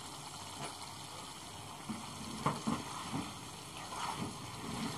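Thick tomato gravy simmering and bubbling in a pan. A spoon stirs it, making a few soft scrapes and taps around the middle.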